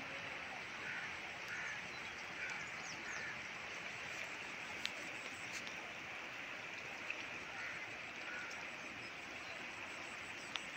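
Steady rushing of floodwater flowing across flooded fields, with a few faint short calls over it.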